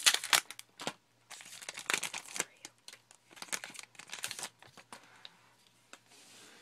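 Trading-card pack wrappers crinkling and tearing as a pack is slit open with a razor blade and handled, in several irregular bursts that die down to faint rustling near the end.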